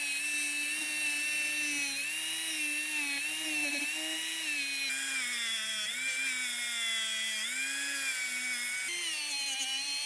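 A small high-speed power tool, such as a rotary tool, running steadily. Its pitch dips and recovers several times as it bears on the work and is eased off.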